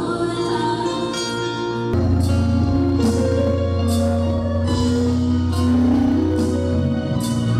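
A live band plays amplified music, heard from the seats of a large hall. Held notes come first, then about two seconds in the bass and a steady beat come in.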